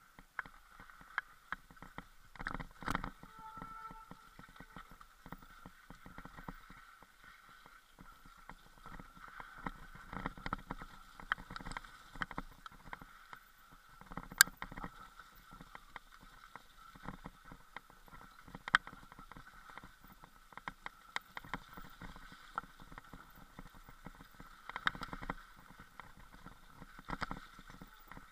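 Mountain bike riding down a rough, snowy dirt trail: irregular knocks and rattles of the bike jolting over ruts and roots, over a steady hiss, with a few sharper bangs along the way.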